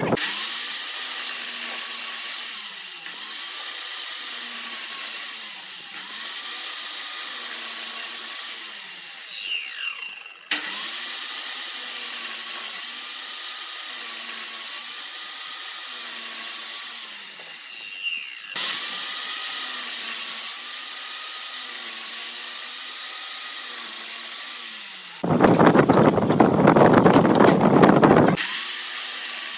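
Ryobi sliding miter saw running and cutting a series of shallow kerfs across a wooden board, its whine dipping in pitch with each pass about once a second. Near the end comes a louder, fuller burst of saw noise lasting about three seconds.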